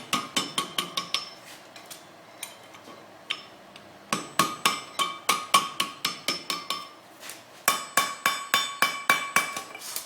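Blacksmith's hammer striking a steel bar on the anvil in quick runs of about five blows a second, with a ringing tone after each blow. The runs come at the start, from about four to seven seconds in, and again near the end, with a few single taps in the pause between. The smith is working the bar between two bends to close up the sides of a forged heart hook.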